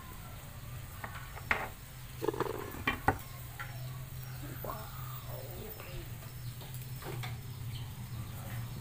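A few sharp knocks of a kitchen knife against a cutting board while cutting soft steamed bread, over a steady low hum.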